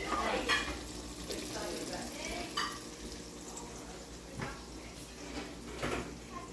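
Battered shark pieces frying in hot oil in a cast-iron pot, a steady sizzle, with about four short clicks and taps as pieces are handled at the pan.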